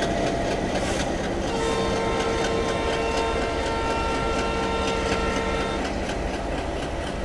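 Passing Indian Railways passenger train, its coach wheels clicking over the rail joints in a steady rhythm of about four clicks a second under a low rumble. A train horn sounds one long, steady multi-tone blast from about one and a half seconds in until nearly six seconds.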